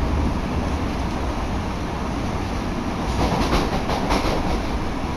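A Kita-Osaka Kyuko commuter train running, heard from inside the car as a steady rumble, with a quick run of clacks from the wheels over the track about three seconds in.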